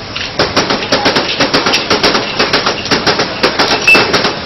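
Glasses clinking and knocking in quick succession, several sharp strikes a second, with a brief ringing tone now and then, as glasses are washed and set down at high speed.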